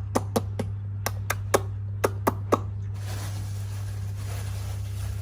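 Sharp clicks or taps in three quick groups of three over a steady low hum; the clicks stop about three seconds in, when a hiss comes in.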